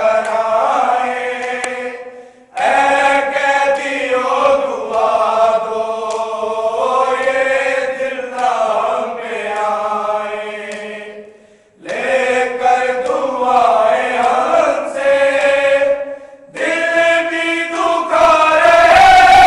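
A group of men chanting an Urdu noha, a Shia mourning lament, in unison without instruments. Long drawn-out sung lines are separated by three short pauses, about two seconds in, near the middle, and about three-quarters of the way through.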